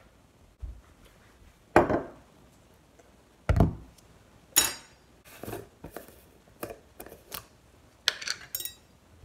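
Kitchen handling sounds while making peanut butter toast: bread slices and a table knife set on a plastic cutting board, and a jar of peanut butter put down on the stone countertop and its plastic lid unscrewed. About eight separate knocks and clinks, with a heavy thud about three and a half seconds in.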